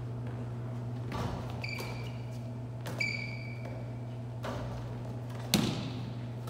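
Basketball and sneakers on a hardwood gym floor: short high sneaker squeaks and several knocks of the ball, the loudest a sharp thump about five and a half seconds in, echoing in a large hall over a steady low hum.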